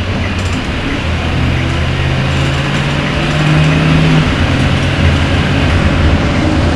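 Cabin noise of a small bus driving on a wet road: a steady low engine drone with the hiss of tyres on wet pavement. A humming engine note comes in about a second and a half in, climbs slightly, and drops back a little after four seconds.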